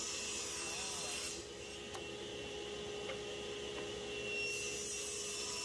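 A plywood panel sliding along the metal top of a table saw, pushed by a 2x4 push block: wood rubbing on metal over a steady hum.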